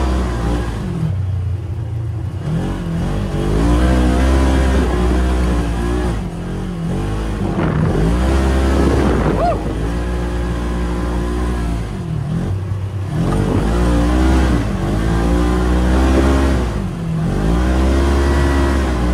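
A vehicle engine revving up and easing off again and again, its pitch rising and falling every few seconds over a steady low rumble.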